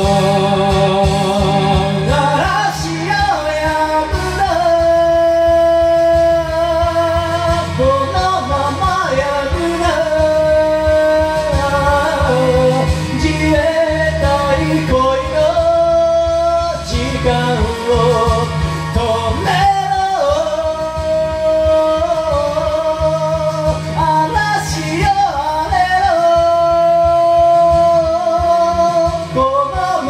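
A voice singing karaoke over the backing track, holding long notes with vibrato.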